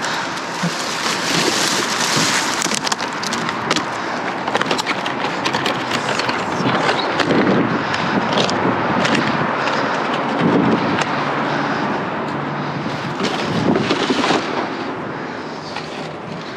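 Rummaging through trash in a dumpster: continuous rustling and crinkling of bags and packaging, with many small clicks and knocks as things are handled and moved.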